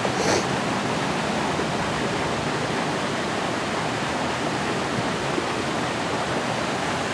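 Steady rush of water from a waterfall or stream.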